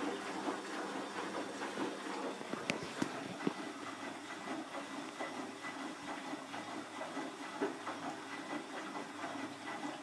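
Bosch WFF2000 front-loading washing machine tumbling its drum during a rinse, with water and wet laundry sloshing and the drum motor running, sounding a little more healthy. One sharp click about two and a half seconds in.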